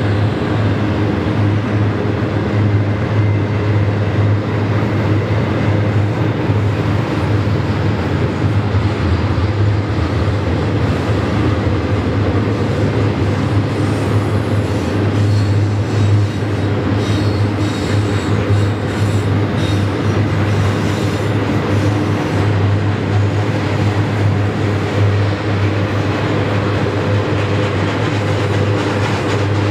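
Double-stack intermodal freight cars rolling steadily past, a continuous rumble of wheels on rails, with faint high wheel squeal a little past the middle.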